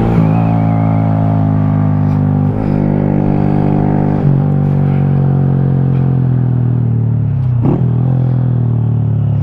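2018 Honda Grom's 125 cc single-cylinder four-stroke engine running under way, heard from the rider's seat. The note holds steady, breaks briefly twice early on, then slowly falls as the revs come down, with a quick dip and return in pitch a little before the end.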